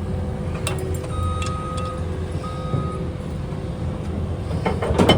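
Tow vehicle's engine idling with a steady low rumble while a single-pitch beep sounds a couple of times. Near the end comes a loud metallic clunk as the trailer's coupler drops onto the hitch ball.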